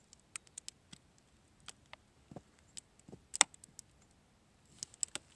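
Clear plastic bag of papers handled with gloved hands: scattered, faint, irregular crinkles and clicks, the loudest about three and a half seconds in.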